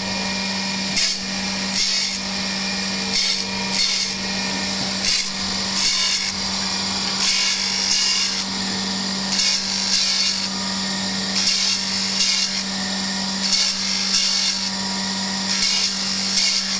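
Surface grinder grinding a steel mould ring on its magnetic chuck. A steady motor hum runs under a hiss from the wheel cutting the steel, which comes and goes about once a second as the reciprocating table carries the ring back and forth under the wheel.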